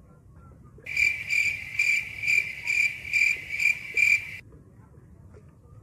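Cricket chirping: about eight evenly spaced chirps, a little over two a second, starting about a second in and stopping abruptly some three and a half seconds later, over a faint low rumble.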